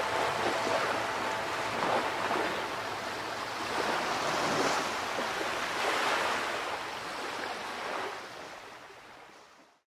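Ocean surf: waves breaking and washing in, swelling and easing several times, then fading out to silence near the end.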